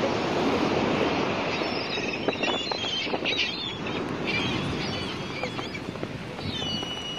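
Steady wind and lapping-water noise, with short, high bird calls in the middle and again near the end.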